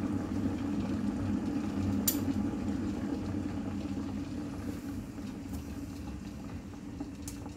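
1976 Swan Automatic DeLuxe chrome electric kettle rumbling steadily as its water heats towards the boil. The rumble eases slightly towards the end, with a sharp click about two seconds in and another near the end.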